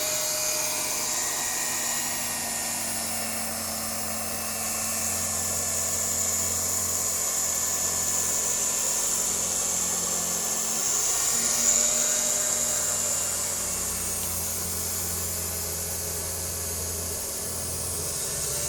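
Octa mini electric fabric-cutting machine running steadily with a low hum and a high hiss, cutting through a stack of T-shirt knit fabric. It briefly gets a little louder about two-thirds of the way through.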